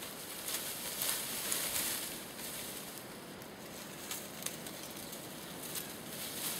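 Leafy branches and dry leaves rustling and crackling as they are handled and pushed about at a tree trunk, with a few short sharp clicks of twigs in the second half.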